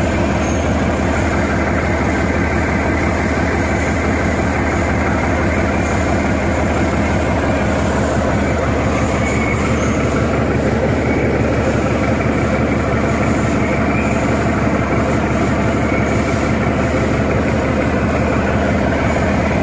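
Mercedes-Benz OM355 straight-six truck diesel idling steadily, being warmed up on a test run before it goes into the truck. With its injection pump and injectors freshly calibrated, it runs smoothly and in time.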